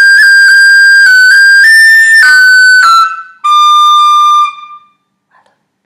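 Irish tin whistle playing a short practice phrase in its upper register. It is a quick slurred run with little ornament flicks (a G roll) that rises to a peak and falls away. After a brief break comes a single held, tongued D note.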